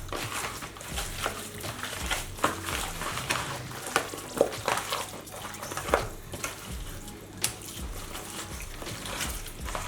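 Hands rubbing dry seasoning into raw chicken: irregular wet squishing and slapping of the meat, with short sharp clicks here and there.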